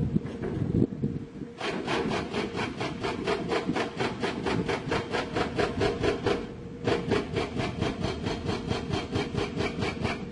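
Excavator-mounted hydraulic rock breaker hammering rock in a fast, even rhythm of about six blows a second, over the steady run of the excavator's diesel engine. The hammering starts about a second and a half in, pauses briefly about two-thirds of the way through, then resumes.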